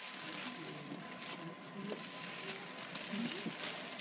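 Handling noise as a phone is carried while walking: brushing and rubbing against clothing, with faint scattered voices in the background and a thin steady electronic tone.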